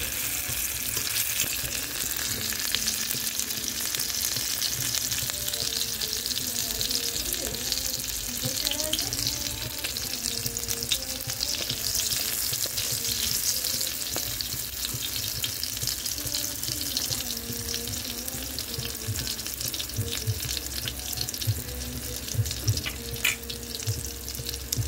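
Chopped green chillies and spice paste sizzling steadily in hot oil in a kadai: the tempering that starts the fish curry's masala. A few sharp taps of the spatula against the pan come through.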